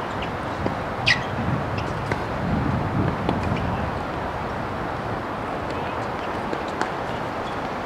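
Outdoor tennis-court ambience: a steady background hiss with a few faint scattered clicks, and one short high squeak that falls in pitch about a second in.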